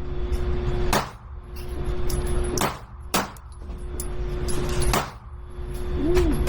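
Four pistol shots at uneven intervals, from a SIG P365 Fuse 9 mm, over a steady hum.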